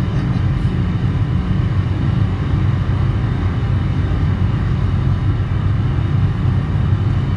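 Steady low drone of a car cruising at highway speed, heard from inside the cabin: engine and tyre-on-road rumble, unchanging.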